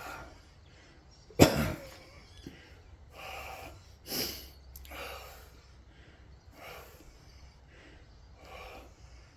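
A man coughing once, sharply, about a second and a half in, followed by a run of heavy, wheezy breaths.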